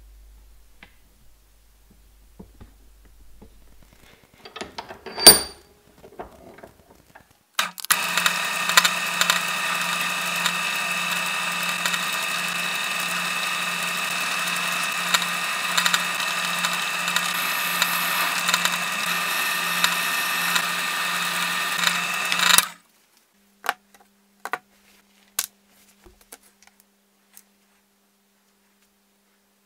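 Benchtop drill press running and boring into a deer antler knife handle: a steady motor sound with a rapidly pulsing low hum, starting about 8 s in and cutting off abruptly some 15 s later. Before it comes a single sharp, loud knock, and after it a few light clicks.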